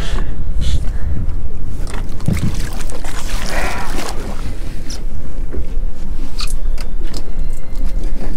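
Water splashing as a bull redfish is hauled by hand out of the water over the side of a boat, loudest about three to four seconds in, with a few knocks against the hull. A heavy low rumble runs underneath.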